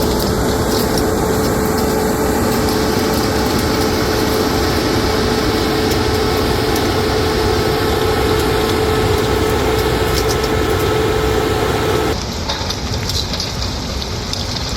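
Keestrack B4E jaw crusher running, crushing demolition concrete: a steady machine noise with a constant hum and a scatter of small clicks and rattles from the rubble. About twelve seconds in the hum cuts out and the noise drops to a quieter, hissier run.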